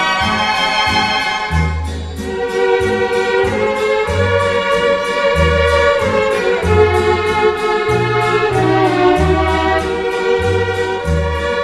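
Instrumental break of a Croatian pop song: a held, slowly moving melody over a steady beat and a bass line.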